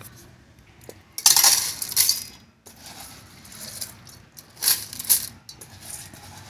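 Soaked rice being tipped into the metal inner pot of an electric rice cooker, the grains pattering and rattling onto the perforated metal plate at the bottom. It comes in two pours: a longer one about a second in and a shorter one near the end.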